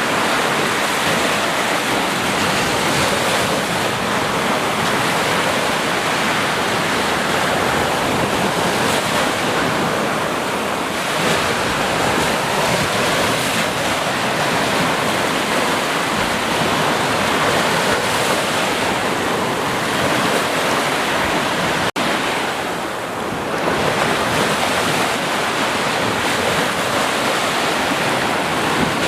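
Sea surf: waves breaking and washing in a continuous rushing roar that swells and eases slightly, with a momentary break in the sound about two-thirds of the way through.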